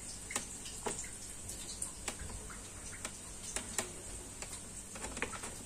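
Faint, irregular light clicks and taps from a utensil against the steel mixing bowl while handling chocolate sponge cake batter.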